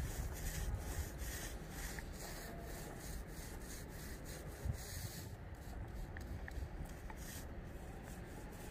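Hand roller rubbing back and forth over resin-wet fiberglass mat in repeated strokes, about two or three a second, as the resin is rolled into the laminate. The strokes thin out in the second half.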